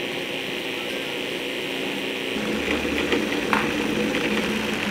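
Cuisinart food processor motor running steadily while cold cream is poured in to bring flour and butter together into pastry dough. About two and a half seconds in, a lower rumble joins the sound as the dough starts to clump.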